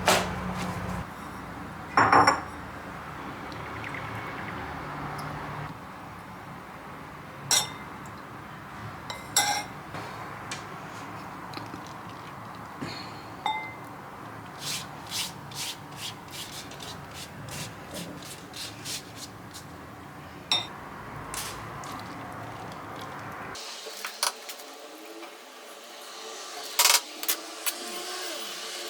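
Kitchen handling sounds: utensils and dishes clicking, clinking and knocking at irregular moments, with rubbing and scraping, over a steady low hiss.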